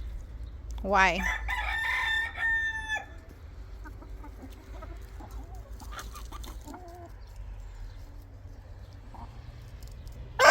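A rooster crowing once, about two seconds in, followed by faint scattered hen sounds; a second, louder crow starts right at the end.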